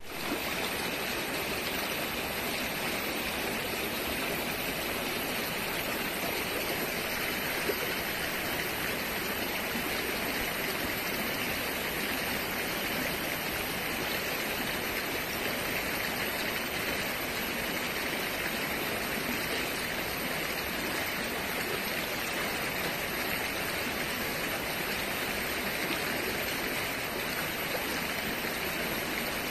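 River water flowing and rushing over stones, a steady, even sound.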